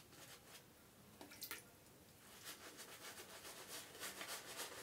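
Mixed-hair shaving brush working lather into a bearded face: faint wet rubbing strokes that turn into a quick, steady run about halfway in, the stage of face lathering before the razor pass.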